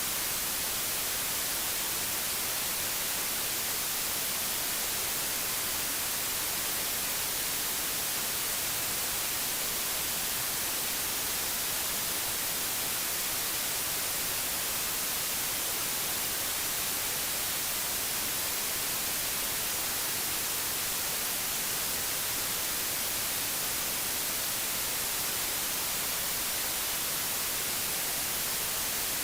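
Steady digital white noise: an even, flat-spectrum hiss that does not change.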